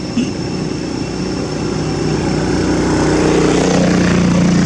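An engine running with a steady hum that grows louder from about halfway through.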